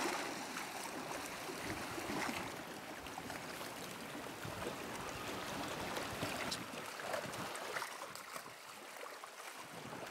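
Seawater washing and splashing against a rocky shoreline, with small clicks and knocks in it.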